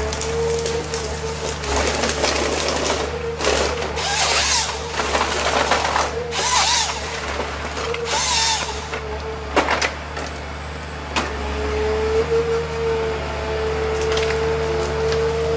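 A motor-driven wood machine running with a steady whine, broken by three louder bursts of harsh, squealing noise around the middle, as of cutting, and a sharp knock shortly after.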